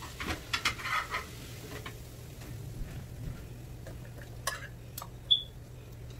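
Faint clicks and knocks as pieces of seasoned raw beef are laid into a crockpot's insert, over a steady low hum. A short high squeak comes a little after five seconds and is the loudest sound.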